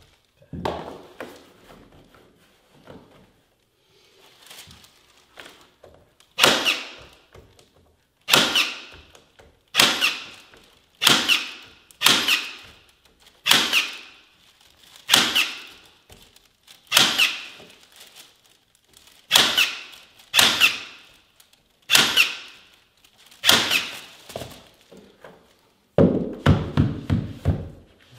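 Electric staple gun firing staples through carpet tile into a wooden stair, about a dozen sharp clacks each with a short ringing tail, one every second or so. Near the end, a quicker run of duller knocks follows.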